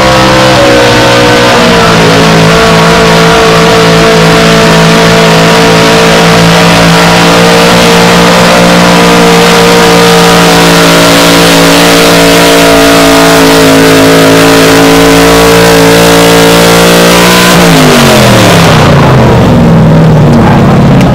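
Chevrolet pickup truck's engine held at high revs under full throttle while dragging a truck-pulling sled, a loud steady drone. Near the end the throttle comes off and the pitch falls away to a lower running sound.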